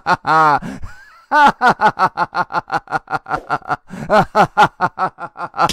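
A cartoon character's voice laughing hard in rapid, short "ha" pulses, with one drawn-out sound and a brief pause about a second in. The laugh cuts off abruptly at the end.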